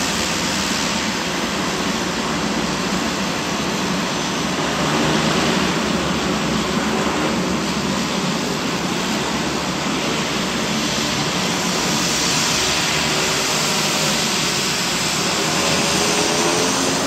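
Twin turboprop engines of a Dornier 228 running as it taxis, a loud, steady rushing whine. Near the end a pitched propeller hum comes in and rises a little.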